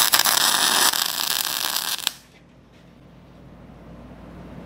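MIG welding arc in spray-arc transfer from a Millermatic 255, a steady loud hiss that cuts off suddenly about two seconds in when the weld bead ends.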